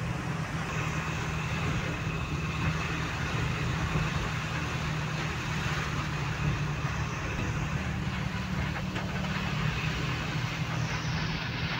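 Vehicle engine running with a steady low hum, heard from inside the cabin while driving through heavy rain, with an even hiss of rain and wet-road noise over it.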